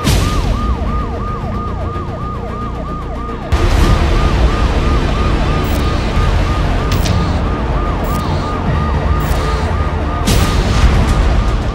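Police vehicle siren sounding in rapid falling sweeps, about three a second, over a steady rumble of noise. The rumble gets louder about three and a half seconds in.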